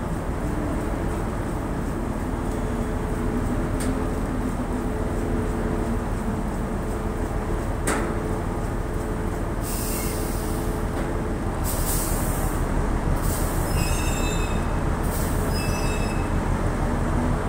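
Dredger's deck machinery running steadily with a heavy hum. From about ten seconds in come several separate bursts of high-pitched metallic squealing.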